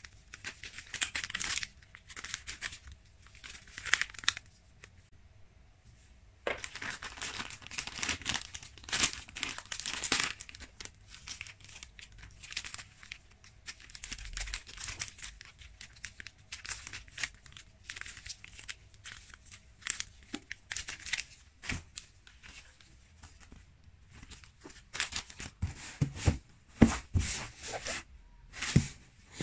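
Paper and foil wrappers of individually packed tea bags crinkling and rustling in bursts as they are shuffled through by hand. Near the end come a few sharper knocks and thumps from a cardboard box being handled.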